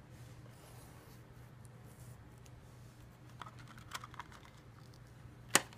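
Plastic handling clicks from an iPhone 6 case being drawn out of its clear plastic packaging tray: a few soft clicks a little past halfway, then one sharp click near the end.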